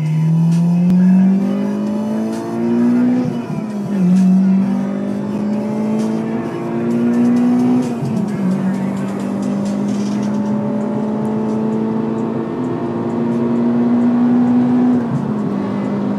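Acura RSX Type S 2.0-litre i-VTEC four-cylinder with an AEM V2 intake and a Greddy Ti-C 70 mm exhaust, heard from inside the cabin, accelerating hard through the gears. The engine note climbs steadily and drops at each upshift: about three seconds in, about eight seconds in, and again near the end.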